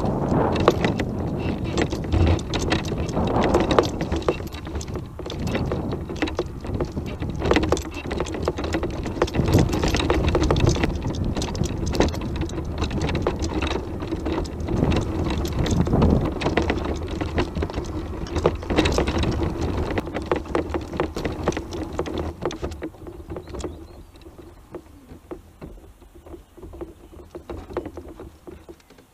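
Off-road mobility scooter driving over rough ground: a steady electric motor whine under a low rumble, with many short knocks and rattles from the bumps. The noise dies down over the last few seconds.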